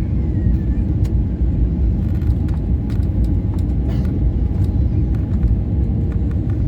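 Steady low rumble of engine and airflow noise inside an Airbus A320neo's cabin on final approach with the landing gear down, with a faint steady hum and a few light ticks.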